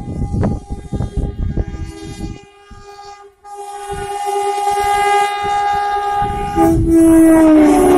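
WAG9 electric locomotive sounding its horn as it approaches: irregular low thumps and a faint horn tone at first, then a loud, long horn blast from about three and a half seconds in. Near the end the horn drops to a lower pitch and grows louder.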